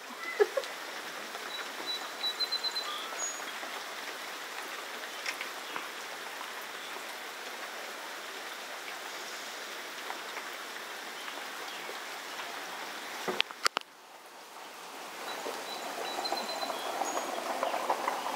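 Steady rain falling on a street and lawn, an even hiss of water. Two sharp clicks about two-thirds of the way in, after which the rain sound dips briefly and builds back up, louder toward the end.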